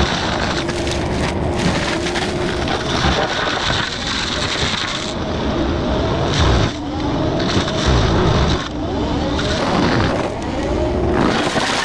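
Excavator engine and forestry mulcher head running under load while grinding brush. The pitch repeatedly sags and climbs again as the drum bites into the material.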